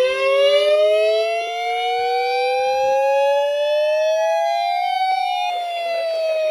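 Two-tone warning siren: two pitches glide up together for about four seconds, then turn and begin to wind back down.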